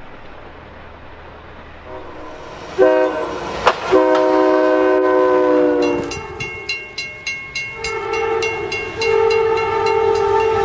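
Train horn sounding two long blasts, each a chord of several notes, over the rumble of a train. Between the blasts come rapid regular clacks at about three to four a second. The second blast drops in pitch as it ends, as the train passes.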